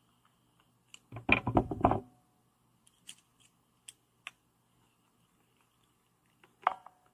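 Engineer Neji-Saurus PZ-22 pliers gripping and turning a small screw on a metal flashlight body: a dense run of metal clicks and scraping about a second in. Then a few light ticks and one sharp metal click near the end as a hex key is fitted to a screw.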